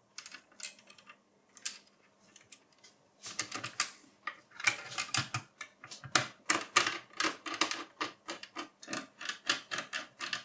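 A metal drive bracket is set back into the mini PC's chassis with a few light clicks. Then a small screwdriver fastens it, giving a fast run of small clicks, several a second, from about three seconds in.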